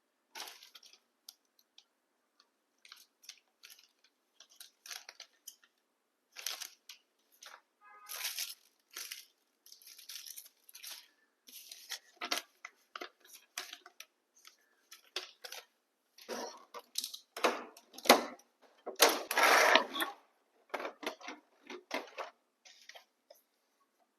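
Packaging of an RC truck kit being handled and opened: scattered short rustles, crinkles and clicks, with a longer tearing or rustling noise about nineteen seconds in.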